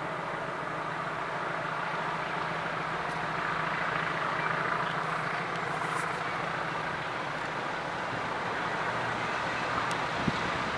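English Electric Class 20 diesel locomotives working at full power up a steep gradient, their engines thrashing and growing slowly louder as they approach.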